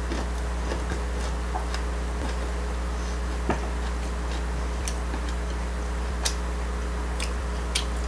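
Chopsticks clicking lightly and irregularly against the dishes as food is picked up, over a steady low hum.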